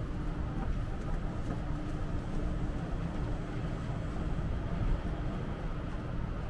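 Steady low rumble of city traffic, with an elevated train coming into hearing as it approaches along its viaduct.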